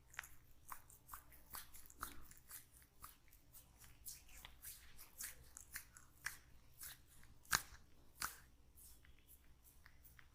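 Quiet crisp clicks and crackles from a barber's hands working through oiled hair and over the scalp, a few a second and irregular, with two louder sharp snaps about three-quarters of the way through.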